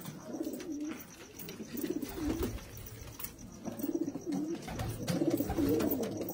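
Domestic pigeons cooing, several birds overlapping. Their warbling coos rise and fall in pitch and come in repeated phrases about every second or two.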